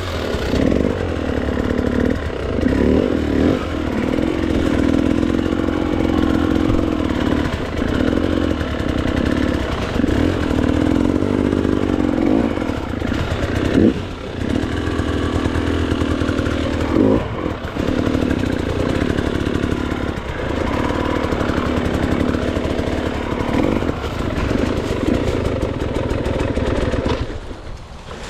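GasGas dirt bike engine revving hard and unevenly as it is ridden up a rocky hard-enduro climb, with brief dips in the revs and a few knocks from the bike hitting rock.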